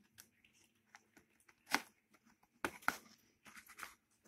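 Plastic DVD packaging being handled: shrink wrap and a cardboard slipcover crinkling and scraping in a few short, separate rustles.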